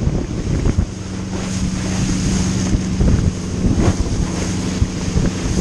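Wind buffeting the microphone over rushing water and spray from a wakeboard being towed across a boat's wake, with a steady low hum coming in about a second in.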